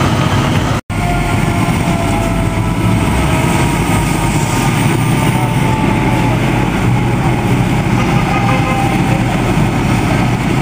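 Diesel fire engines running, a steady loud rumble with faint whining tones above it. The sound drops out for an instant about a second in.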